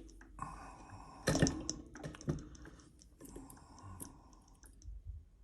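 ERA five-lever padlock and lock-pick tools being handled: scattered small metal clicks and clinks, with one louder knock about a second and a half in.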